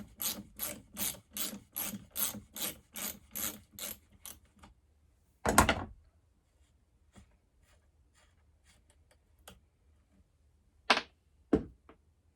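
Hand ratchet wrench clicking in quick, even strokes, about three a second, as it backs a bolt out of a chainsaw's anti-vibration handlebar mount; the clicking stops about four and a half seconds in. A single loud thump follows, and two sharp knocks come near the end.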